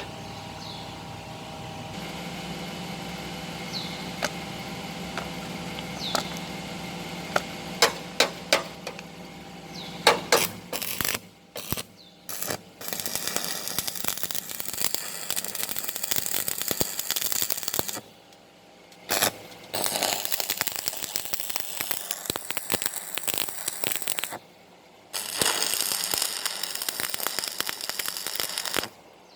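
Stick (arc) welding with 2.2 mm electrodes on a pipe flange: the arc crackles and sizzles in runs of several seconds, stopping abruptly a few times as the arc is broken. Before that, a steady hum with a handful of sharp metallic clicks and taps.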